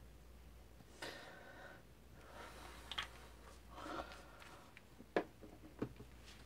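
Faint handling of small plastic dropper bottles at a digital scale, with soft rustles and light clicks. The sharpest click comes a little after five seconds in and another just before six, as the scale is zeroed.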